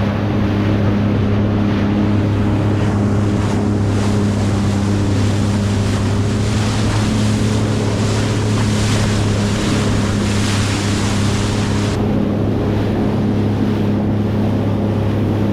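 Sea-Doo personal watercraft running at a steady cruising speed, its engine holding an even pitch, with wind rushing over the microphone and water hissing under the hull. The hiss thins about twelve seconds in.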